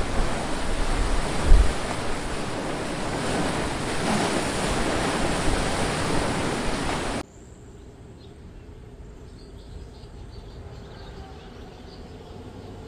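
Loud rushing wind and water noise, with a low thump about a second and a half in, likely wind buffeting the microphone. About seven seconds in it cuts off abruptly to a much quieter, faint steady background.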